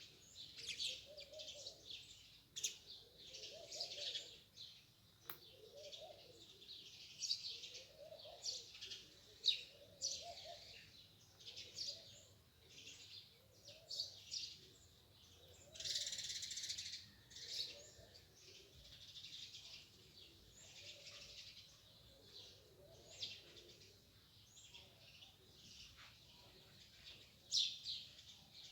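A chorus of small birds chirping and twittering in quick, overlapping short calls, with a softer, lower call repeating about once a second underneath.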